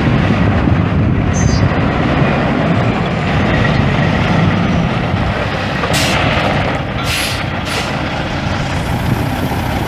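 Caterpillar C15 twin-turbo inline-six diesel of a 2005 Kenworth W900 semi running steadily, with short hisses of air about six and seven seconds in.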